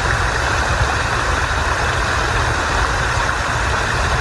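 Water rushing steadily down a boulder-built cascading waterfall stream of a backyard koi pond.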